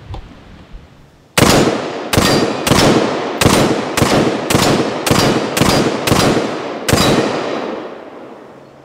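Ten rifle shots from a 14.7-inch-barrel AR-15 fired in quick semi-automatic succession, about two a second, each followed by a short echoing tail; the string starts about a second and a half in and the last shot comes after a slightly longer gap.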